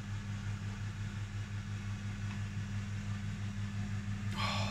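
Ninja Foodi Max air fryer running on bake/roast, its fan giving a steady low hum.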